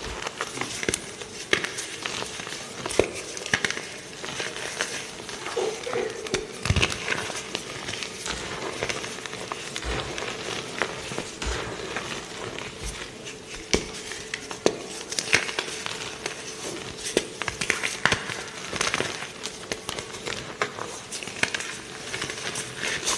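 Dried cornstarch being crushed and crumbled by hand: a dense, irregular run of crunches and crackles.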